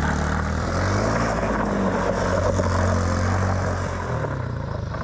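ATV engine revving as the quad rides along a dirt track. The pitch climbs about a second in, holds, then drops near the end as the rider eases off.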